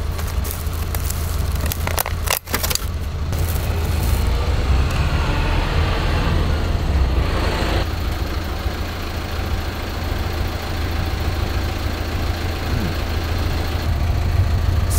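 Steady low rumble, like a vehicle engine or wind on the microphone, with brief crackling like a plastic snack wrapper being handled about two to three seconds in.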